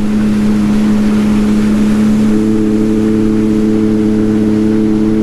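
Sea-Doo jet ski engine running steadily, a constant drone over a steady hiss. About two seconds in, higher tones join the drone.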